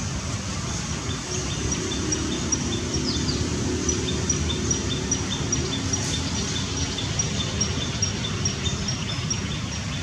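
Outdoor ambience: a steady low rumble like distant road traffic, with a bird repeating a short high chirp about two or three times a second and one brief falling note about three seconds in.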